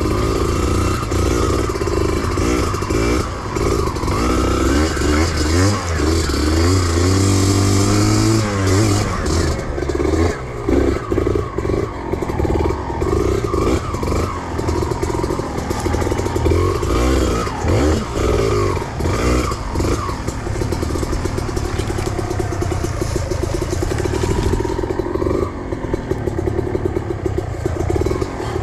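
Trail motorcycle engine revving hard, its pitch rising and falling again and again as it works through the throttle, with rattling and clatter.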